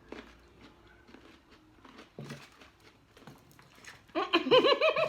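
Faint scattered clicks, then about four seconds in a loud burst of laughter: a quick run of high 'ha' sounds, each rising and falling in pitch.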